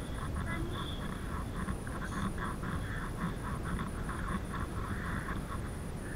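Wind buffeting the microphone and tyre rumble from a bicycle ridden fast on a tarmac path, with a fast, irregular clicking rattle over it.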